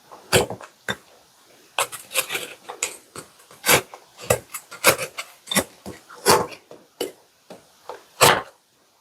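Crisp chocolate chip cookies being bitten and crunched close to the microphone: a series of sharp, dry crunches at irregular intervals.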